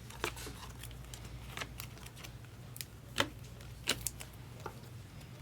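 Trading cards being handled and flipped: a scatter of light clicks and taps, with a couple of sharper clicks about three and four seconds in.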